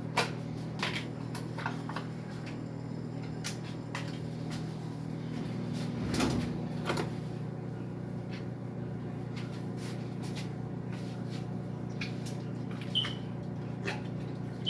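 Kitchen handling sounds as a container of sour cream is opened and spooned out: scattered light clicks and knocks, a louder clatter about six seconds in, over a steady low hum.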